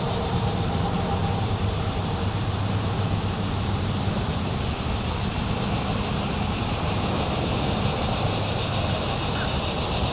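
Steady low engine hum, such as a boat motor running, unchanging throughout.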